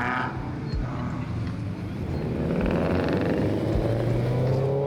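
Car engine accelerating: its pitch climbs steadily for a few seconds, then levels off near the end.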